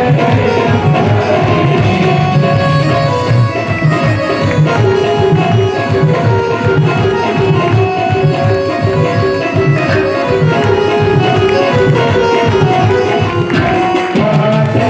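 Indian devotional music: tabla drumming a steady rhythm under held melodic notes.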